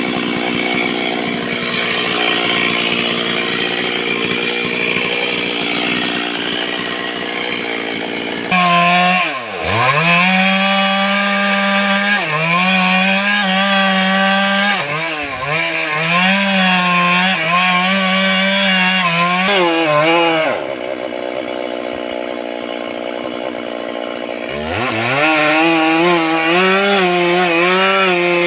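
Stihl two-stroke chainsaw running at high revs while cutting wood. Its pitch dips sharply several times as the chain bogs under load and recovers. It eases off for a few seconds near the end, then revs up again.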